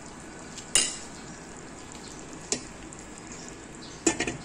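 Chicken in a butter and evaporated-milk sauce sizzling and bubbling steadily in a non-stick pan. A metal spoon clicks sharply against the pan about a second in and again midway. Near the end, a glass pan lid clatters briefly as it is set on.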